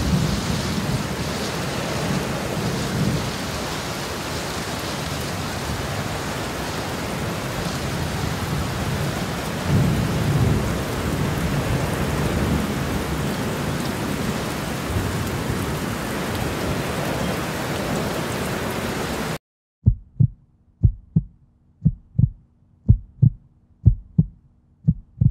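A steady rushing noise with a few low rumbling thumps cuts off abruptly. It is followed by a heartbeat sound effect: low double thumps repeating steadily, about one beat a second.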